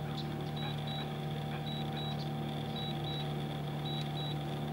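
DJI Mini 2 remote controller beeping in pairs of short high beeps, repeating about once a second: its alert that return-to-home is under way. A steady low hum runs underneath.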